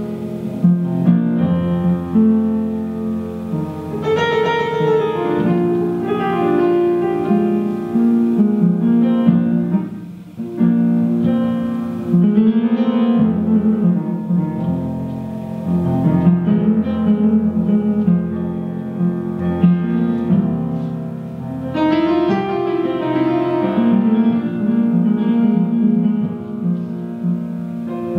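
Live instrumental music playing a melody in long held notes, dipping briefly in level about ten seconds in.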